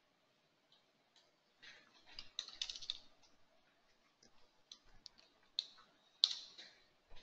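Faint computer keyboard keystrokes, a quick run about two seconds in as an account number is typed, followed by a handful of scattered separate clicks.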